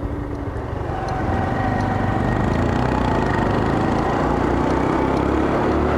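Small single-cylinder Honda motorcycle engine running while riding, getting louder about a second in and then holding steady.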